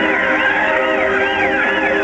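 Music with a wailing tone that sweeps up and down about twice a second over held notes; the sweeping stops near the end while a steady note carries on.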